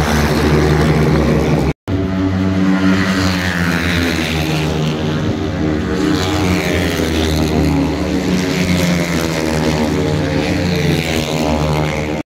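Racing motorcycle engines running hard as a group of bikes circulates on the track, a steady multi-engine drone with pitch that sags slightly later on. The sound drops out for an instant about two seconds in.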